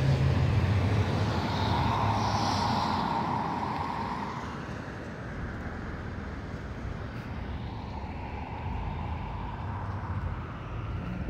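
A car passing on a wet street, its tyre noise and engine loudest in the first few seconds, then fading to quieter traffic.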